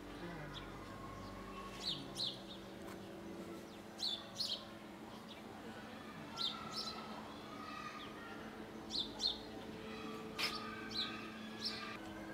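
A small bird chirping: short, high chirps, mostly in pairs, repeating every two seconds or so.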